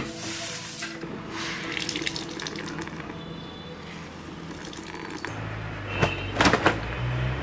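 Water splashing and dripping as wet laundry is wrung out over a plastic bucket. About six seconds in come a few sharp snaps as a wet cloth is shaken out.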